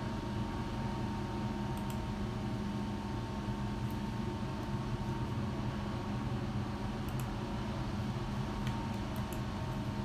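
Steady, even mechanical hum, like a fan or air conditioning running, with a faint steady tone over it and a few faint clicks late on.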